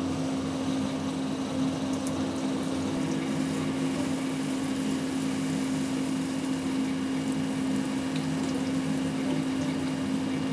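Electric soybean grinder motor running with a steady, constant-pitched hum while soaked soybeans are ground into soy milk for tofu.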